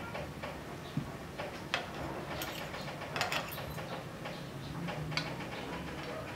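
Metal fork and spoon clicking and scraping against a plate as noodles are twirled and lifted, a few sharp clinks in irregular spacing, over a low steady hum.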